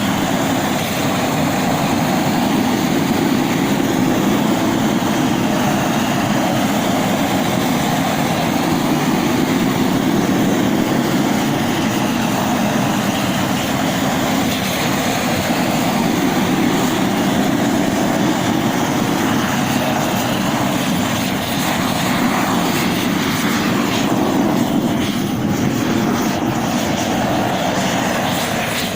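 Gas roofing torch burning with a steady, loud rushing noise while heating torch-applied bitumen roll roofing.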